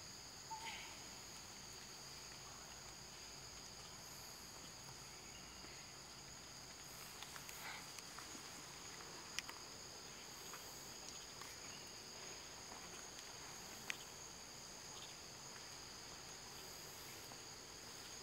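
Steady, faint, high-pitched insect chorus droning on two even pitches. Two sharp ticks stand out, about nine and fourteen seconds in.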